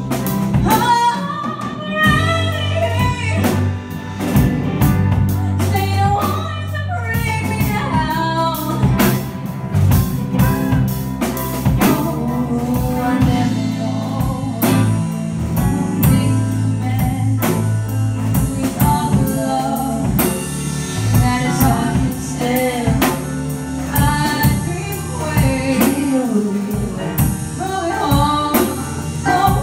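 A live rock band playing a song: a drum kit keeping a steady beat and electric guitars under a lead singer's voice.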